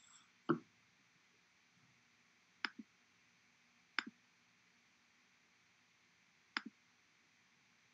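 Faint computer mouse clicks: a single duller click, then three double clicks (press and release) spaced a second and a half to two and a half seconds apart, over faint steady room hum.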